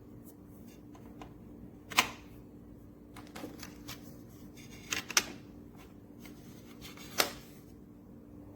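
Handling noise: a few sharp clicks and knocks with some faint rustling, spread over the few seconds, over a steady low hum.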